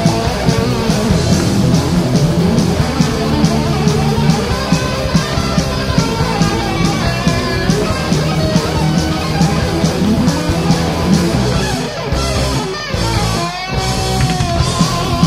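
Rock band's studio demo recording: two guitars, bass and drums playing together with a steady beat of cymbal hits. About twelve seconds in, the drums drop out for a moment and a guitar note bends before the full band comes back.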